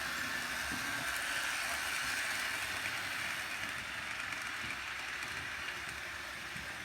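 Model train running on its track: a Dreyfuss Hudson locomotive hauling Rivarossi New York Central coaches, a steady whir and rolling rattle of motor and wheels. One of the coaches' plastic wheels squeaks faintly for lack of oil.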